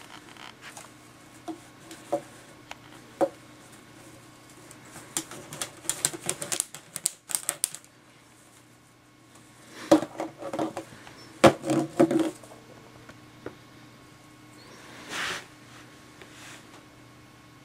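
Empty plastic water bottles clattering and crackling as a ferret noses and shoves them around, a run of irregular clicks and knocks with two busier spells, the loudest about ten to twelve seconds in.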